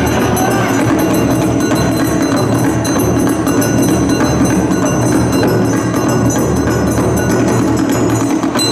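Loud yosakoi dance music with dense, driving percussion.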